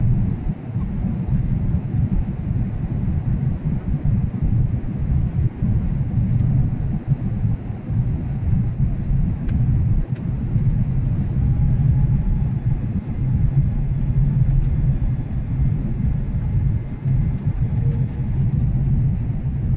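Steady low rumble of an airliner's engines and airflow heard inside the cabin during the descent to landing, with the wing flaps extended.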